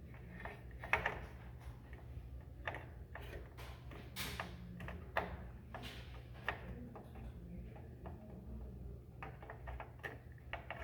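Irregular clicks and light knocks of computer parts being handled and fitted into a desktop system unit, the loudest about a second in, over a steady low hum.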